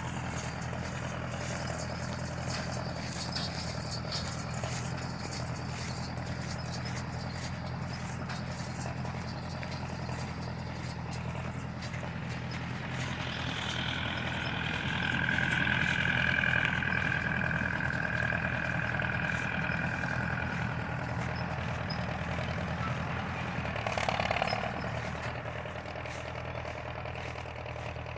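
Tractor engine running steadily. A higher-pitched whine joins in from about 13 to 21 seconds in, and there is a short louder burst of noise near 24 seconds.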